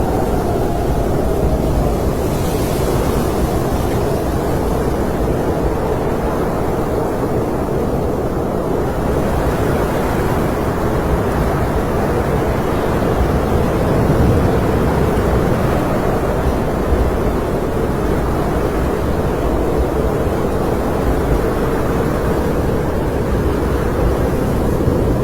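Snowstorm wind blowing steadily: a deep, even rushing sound that does not let up.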